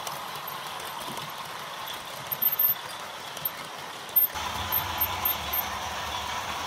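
OO gauge model train running along the track with a steady whirring and rumble. A few sharp clicks come from about two seconds in, and a deeper hum joins a little past four seconds.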